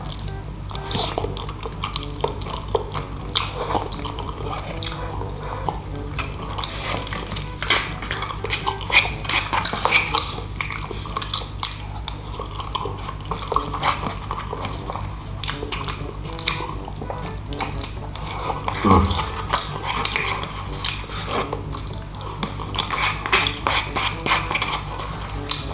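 Close-miked eating: a plastic fork scraping and clicking against a paper food tray while spaghetti is slurped and chewed, with many small clicks and scrapes throughout. Background music plays underneath.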